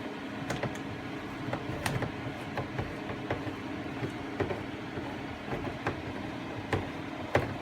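Hand-cranked can opener being turned around the rim of a can of pie filling, clicking irregularly over a steady low hum.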